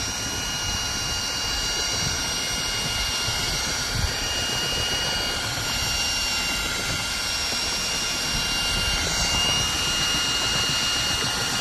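Milwaukee M18 FUEL cordless drill driver running flat out in first gear, a steady high motor whine as it turns a homemade propeller shaft driving an inflatable boat. A constant low rushing of water and wind lies underneath.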